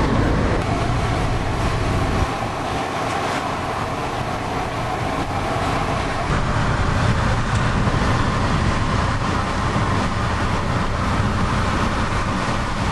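Steady road and engine noise inside a moving car's cabin at motorway speed.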